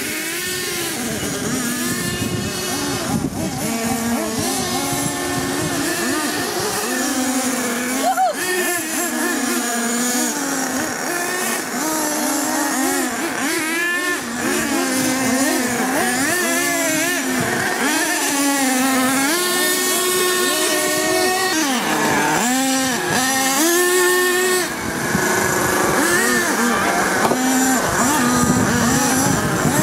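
Several small nitro engines in radio-controlled HPI Racing monster trucks, revving up and down over one another as the trucks are driven.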